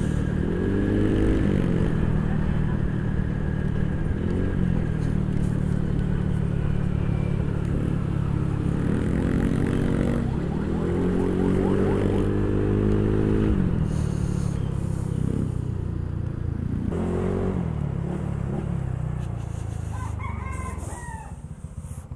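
Honda ADV 160 scooter's single-cylinder engine through a Replica Pro aftermarket exhaust, being ridden hard: the pitch climbs and falls back several times as the throttle is opened and eased, with a cluster of rev-ups in the middle and the sound fading near the end.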